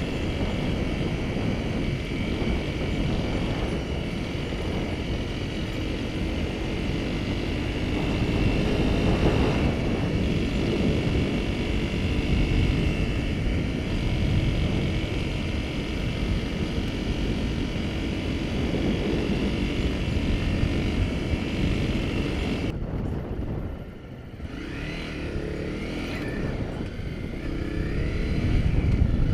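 Honda CRF250 Rally's single-cylinder 250 cc four-stroke engine running as the motorcycle rides along a sandy dirt track. About 23 s in, the sound changes abruptly and drops briefly, then the engine note climbs again toward the end.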